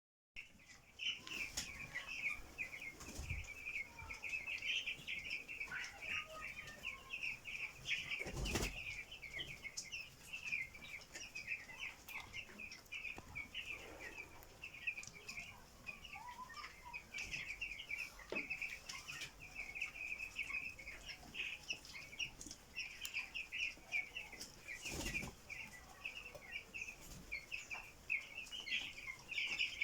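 A flock of broiler chickens peeping constantly in high, rapid chirps, with a few short, sharp sounds breaking through now and then: the birds coughing, which the keeper puts down to the humidity.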